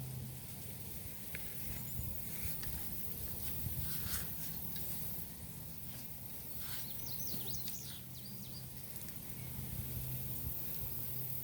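Digging in garden soil: scattered scrapes, rustles and small knocks over a low steady hum, with a quick run of high bird chirps about seven seconds in.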